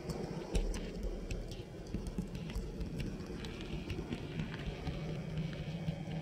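Model train running along the layout's track: a steady low motor hum and rumble, with scattered sharp clicks of wheels over rail joints and points. The hum grows stronger toward the end.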